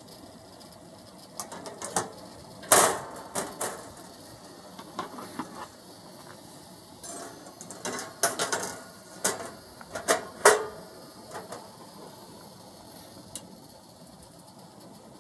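Irregular metal clanks and rattles from the steel rods and expanded-metal mesh baskets of an Asahi Sunred rotisserie chicken griller, loudest about three seconds in and again around ten seconds, dying away well before the end.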